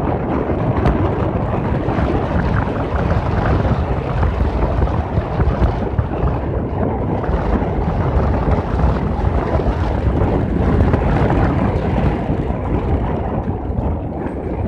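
Wind buffeting the microphone on a moving motorcycle, loud and steady, mixed with engine and road noise.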